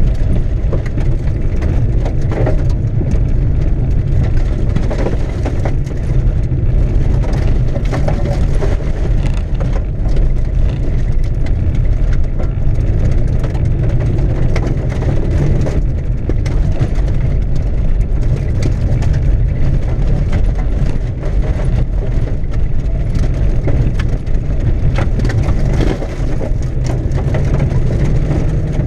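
Cavalier driven hard on a loose gravel rallycross course, heard from inside the cabin: a constant low rumble of engine and tyres on gravel, with stones pelting the underside and wheel wells as a steady stream of clicks and crackles.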